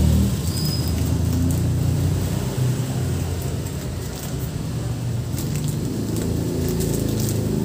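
Low, steady motor rumble, with a few light crinkles of plastic bags being handled.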